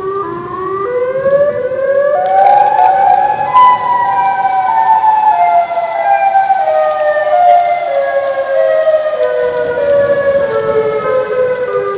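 Siren Head creature sound effect: a siren-like wail with several tones together. It climbs in steps over about the first four seconds, then falls back in slow steps for the rest.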